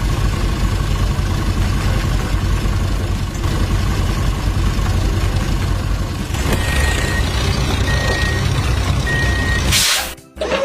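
Heavy truck or construction-vehicle engine running steadily, with three evenly spaced reversing beeps in the second half and a short burst of hiss near the end.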